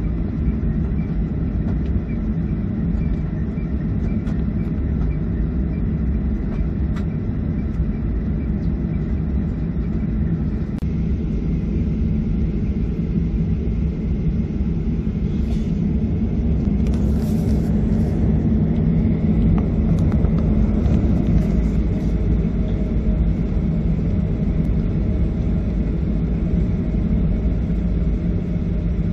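Jet airliner engines heard from inside the cabin while taxiing: a steady low rumble with a faint hum, swelling slightly midway as the plane lines up on the runway.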